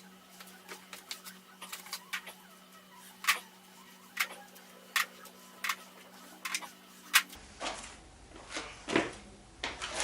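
Sharp metallic clicks and clinks of hand tools and loose parts on an RB25DET cylinder head while the exhaust camshaft is being unbolted, coming irregularly about once a second. A low hum comes in about seven seconds in.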